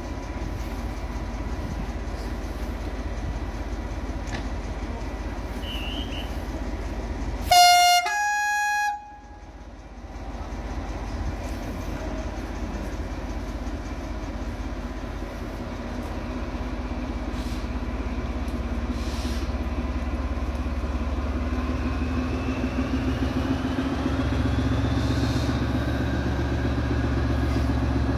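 Class 14 diesel-hydraulic locomotive D9525 running under a steady low rumble, sounding its horn about a quarter of the way in: a short two-note blast, the lower note first, then the higher. Later the engine grows louder with a rising whine as the locomotive pulls away.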